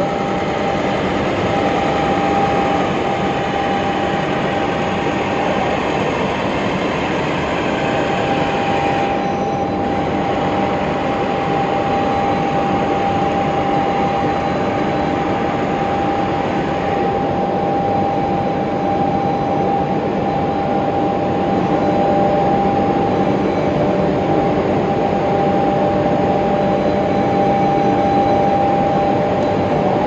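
Aluminium holding furnace's firing system running: a loud, steady roar of the burners and combustion air with a steady whine through it. A second, lower whine joins about two-thirds of the way in.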